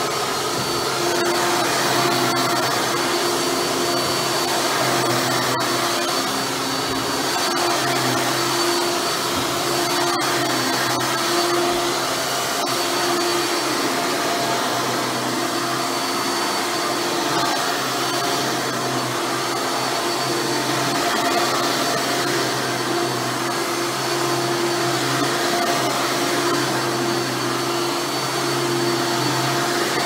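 Hoover Dirt Finder Legacy upright vacuum running steadily on carpet: a constant motor hum and rush of air with a thin high whine on top.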